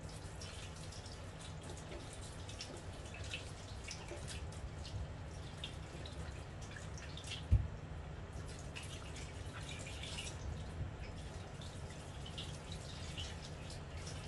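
Thin stream of tap water running over hands and produce being rinsed on a wooden chopping board in a steel sink, with irregular splashes and drips over a steady low hum. A single low thump about halfway through.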